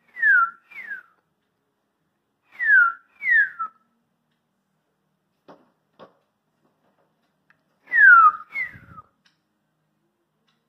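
A person whistling an imitation of a northern cardinal's song: three pairs of clear whistles, each note sliding down in pitch. Two faint taps come between the second and third pairs.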